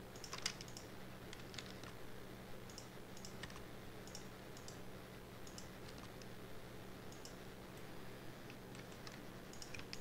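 Irregular key presses and clicks on a computer keyboard and mouse, about one or two a second, over a faint steady hum.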